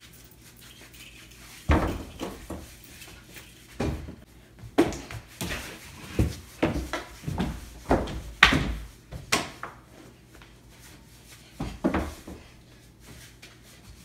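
Irregular thumps and bangs of people scrambling through a house hallway: heavy running footsteps on a wooden floor and knocks against doors and walls, in a small echoing space.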